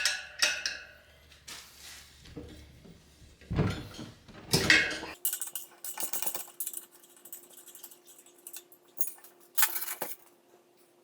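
Metal tools and parts clinking and knocking on and off while a dirt bike's rear wheel is stripped down by hand, with a cluster of louder clacks about four seconds in. After about five seconds a faint steady hum sits under sparser clicks.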